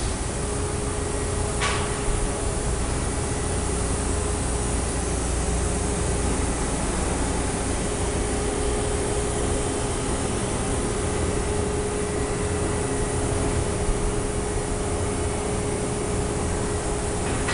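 Steady machine-shop hum beside a powered-up CNC horizontal machining center: a low rumble with a constant mid-pitched whine. One sharp click comes about a second and a half in.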